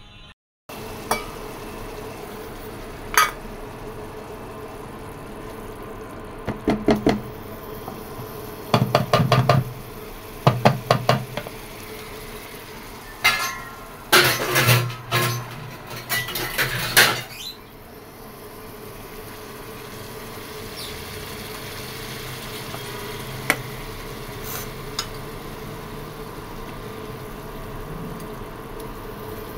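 A metal spatula clattering and scraping against a cooking pan in quick runs of knocks, busiest between about six and seventeen seconds in. Under it runs the steady hiss of fish curry simmering in the pan.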